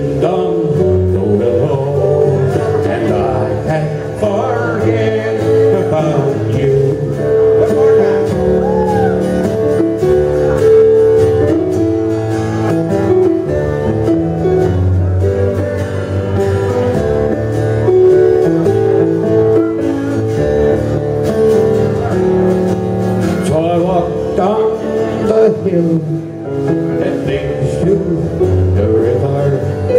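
Live country band playing a song on electric keyboard and guitar, a man singing into a microphone over it in some stretches and the band carrying on alone between his lines.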